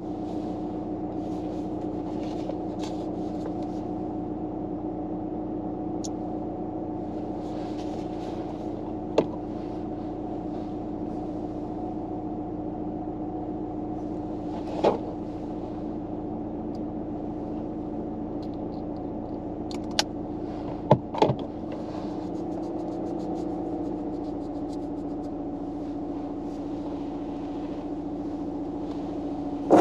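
Steady mechanical hum inside a car's cabin, with a few short clicks or taps.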